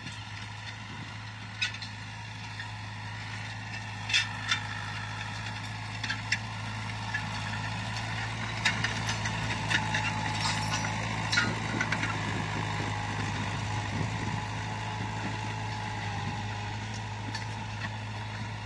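Luzhong LZ504B 50 hp diesel tractor engine running steadily under load while it pulls a disc harrow, growing louder as it comes close and easing off near the end. Scattered sharp clicks sound over the engine, most of them in the first two-thirds.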